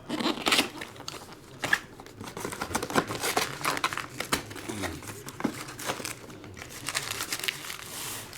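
Foil wrappers of 2019 Topps Heritage Minor League baseball card packs being torn open and crumpled, an irregular run of crinkling and crackling.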